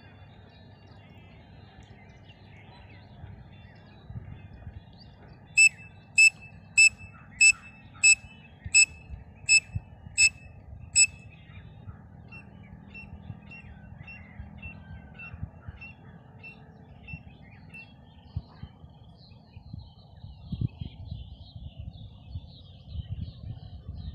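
A pen cap blown as a whistle to imitate a grey francolin's call: a run of nine sharp, loud, high whistles about half a second apart. A fainter run of short notes at the same pitch follows, with faint bird chirping underneath.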